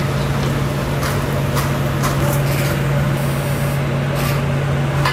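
Battered chicken pieces deep-frying in hot oil, sizzling with scattered crackles, over a steady low hum.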